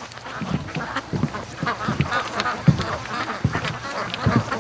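A flock of domestic ducks quacking, many short calls overlapping one another without a break.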